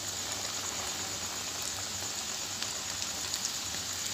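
Crumb-coated chicken pieces deep-frying in hot oil: a steady sizzle with a few small crackles.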